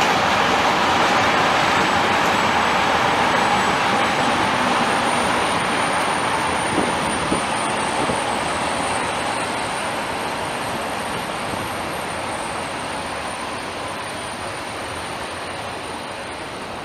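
A train running past on the line, its rolling noise slowly fading as it moves away, with a couple of wheel clicks a little after the middle.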